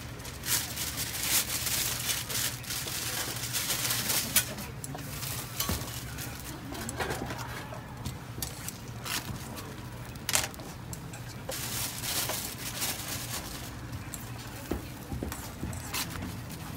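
Fried eggs and toast sizzling on a hot flat-top griddle, with clicks and scrapes of metal tongs and spatula against the plate as the sandwiches are assembled and lifted. A steady low hum runs underneath.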